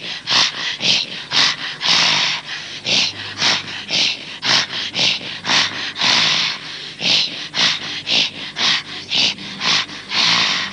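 Folk dancers' rhythmic breath-singing: short, harsh, breathy throat exhalations in a steady beat of about two a second, with a longer drawn-out one now and then.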